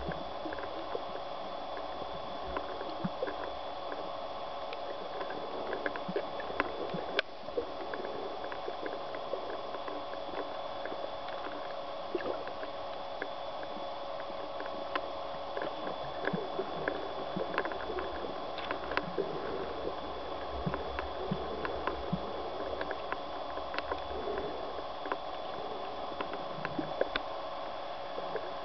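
Underwater ambience picked up by a submerged camera: a steady droning hum with a faint high whine above it, and scattered irregular clicks and crackles.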